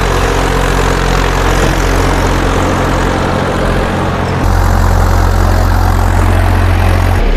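Massey Ferguson 7250 tractor's three-cylinder diesel engine running steadily under load while it pulls a rotavator through dry soil. The engine note shifts suddenly to a deeper, stronger hum about four and a half seconds in.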